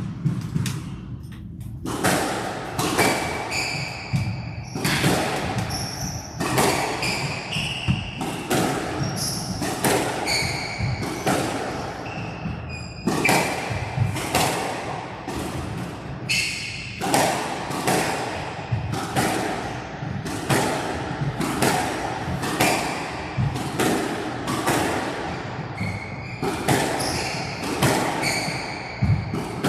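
Squash rally: the ball struck by rackets and hitting the court walls in a string of sharp thuds, about one a second, with players' shoes squeaking on the court floor.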